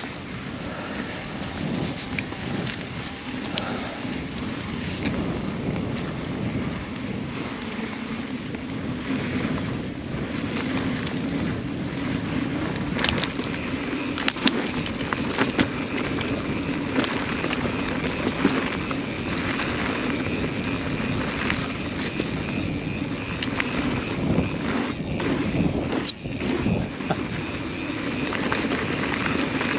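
Mountain bike rolling along a dirt trail: steady tyre noise with frequent rattles and knocks from the bike over bumps.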